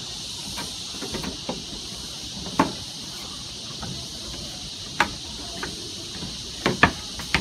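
Scattered light knocks and footfalls of a person walking past seated people, a few seconds apart and closer together near the end, over a steady high hiss.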